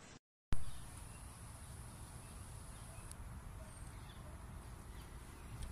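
Outdoor background of low rumbling wind on the microphone, following a brief dropout near the start, with a faint click about three seconds in.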